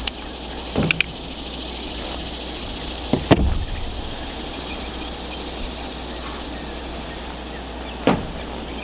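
Steady insect chorus with a few sharp clicks and knocks over it: a pair of clicks about a second in, the loudest knock a little over three seconds in, and another near the end.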